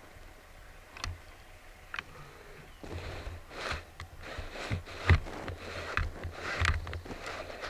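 Irregular crunching and rustling in dry leaves, like footsteps or movement through the forest floor. It starts with a few sparse clicks and gets busier about three seconds in, with the loudest crunch about five seconds in.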